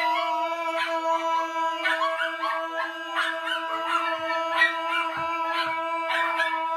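Dog howling and yelping over one long note held at a steady pitch for about seven seconds, which cuts off near the end.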